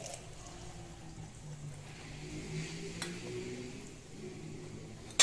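Warm herbal liquid pouring from an aluminium pot into a glass jar, a faint trickle. A light click comes about three seconds in, and a sharp knock near the end.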